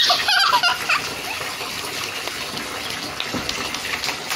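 Water running steadily in a bathtub, splashing around a puppy's feet. In about the first second there is a louder, short, high wavering sound over the water.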